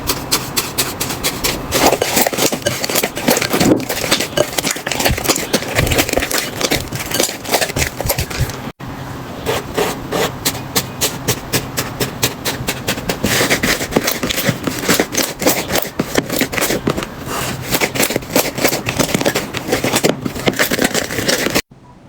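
Slime being pressed and squished by hand, giving a dense stream of quick crackling clicks and pops. The sound breaks off for an instant about nine seconds in and again near the end, where one clip is cut to the next.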